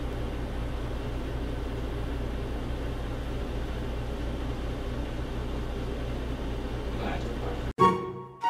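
A steady low hum with hiss, then background music starting suddenly near the end.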